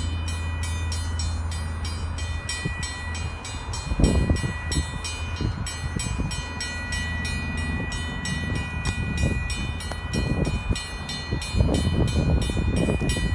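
Steady low rumble with irregular gusts of wind buffeting the microphone, strongest about four seconds in and again near the end.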